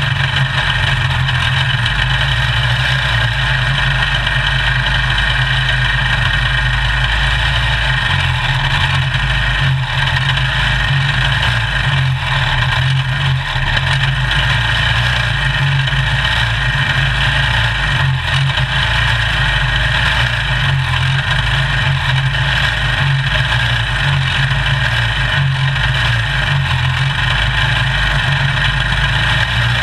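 Small single-seat race car's engine idling steadily, heard onboard at close range, with other race cars' engines idling around it while the field sits stopped in line.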